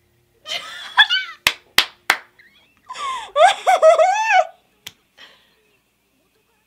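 A woman laughing and squealing in two high-pitched bursts, the second longer and louder. Between them come three sharp smacks in quick succession.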